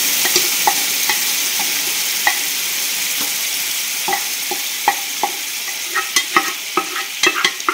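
Mustard seeds frying in hot oil in a curry pot: a steady sizzle with scattered sharp pops and clicks that come more often near the end, as the tempering is stirred.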